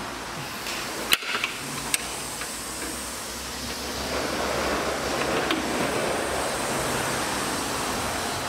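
Hand wrench working on a suspension wishbone bolt: two sharp metal clicks, about a second in and again just before two seconds, over a steady hiss and low hum.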